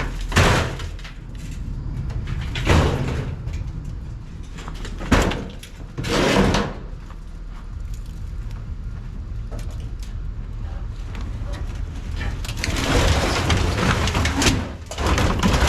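A metal washing machine being manhandled and loaded: a series of bangs and scraping, grinding drags of its sheet-metal cabinet, with a longer stretch of scraping near the end, over a steady low rumble.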